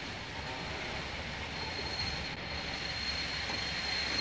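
Train running with a steady low rumble; about a second and a half in, a thin high squeal sets in and holds, the brakes as the train is slowed for a red signal.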